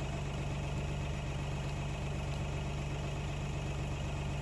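An engine idling steadily with an even low hum, and no hammering strokes.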